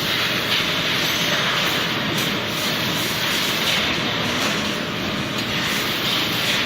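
Food-processing machinery running with a loud, steady mechanical noise, even and without a distinct rhythm or pitch.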